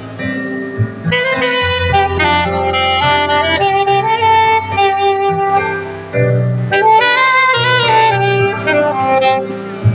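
Saxophone playing a melody of held notes, over a low bass accompaniment.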